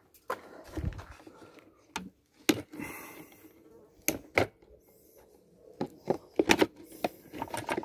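Irregular sharp clicks and knocks of hard plastic parts and hand tools as a Philips Performer Pro vacuum cleaner's plastic housing is taken apart, with a quicker cluster of clicks about six and a half seconds in.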